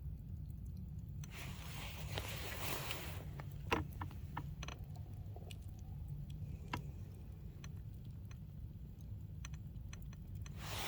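Wood campfire crackling, with scattered sharp pops over a steady low rumble and a brief hissing stretch early on.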